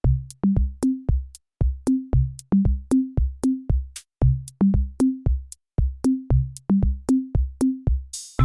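Electronic music with a drum-machine beat and a pitched bass line, starting abruptly. A short hiss-like swell comes near the end.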